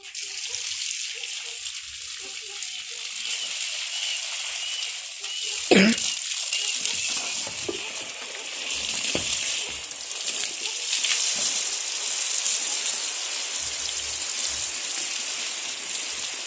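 Garden hose spraying a fan of water onto leafy rose bushes at moderate pressure: a steady hiss of spray pattering on the foliage. A single sharp knock about six seconds in is the loudest moment.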